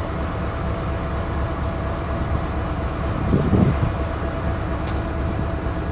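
Parked diesel-electric locomotive idling: a steady low rumble with an even pulse and a faint steady tone above it. A brief louder sound breaks in about three and a half seconds in.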